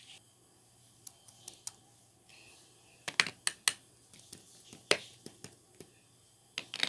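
Slime being pressed and stretched by hand, giving off a series of sharp popping clicks from trapped air bubbles, in irregular clusters with a tight run of pops about three seconds in.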